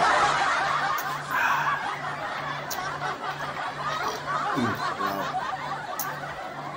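Canned laughter sound effect: a group laughing, cutting in abruptly and going on throughout.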